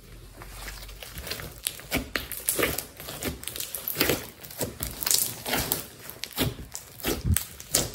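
Thick textured slime being squeezed, folded and pressed flat by hands, giving many irregular small pops and crackles, a few every second.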